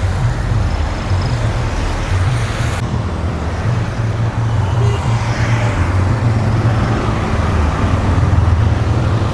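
City street traffic: a motor vehicle's engine running close by with a steady low rumble, over general road noise.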